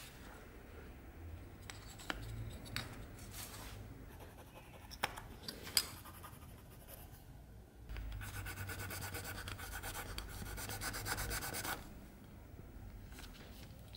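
A thin wooden stick scraping and rubbing on the metal mouthpiece fitting of a dagger scabbard, hand-cleaning it. Light scratches and small clicks at first, then from about eight seconds in, nearly four seconds of fast, even back-and-forth rubbing strokes.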